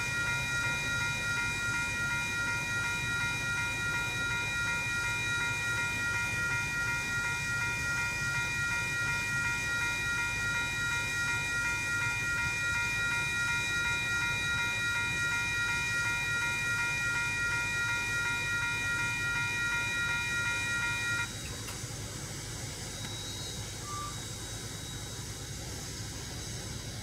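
Railroad crossing warning bells (WCH Type 2 electronic bells) ringing steadily, then cutting off suddenly about twenty seconds in as the crossing clears and the gates begin to rise. A low steady hum runs underneath.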